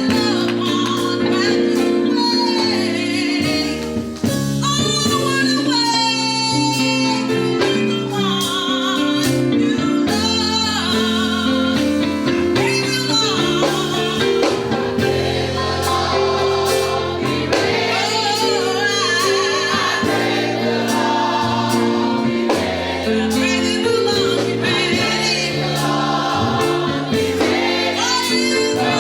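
Gospel music: singing with wavering, vibrato-laden vocal lines over sustained instrumental chords.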